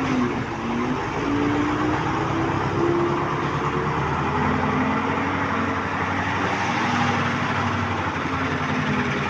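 Heavy dumper truck's engine running steadily, its pitch rising and falling slightly as the engine speed changes.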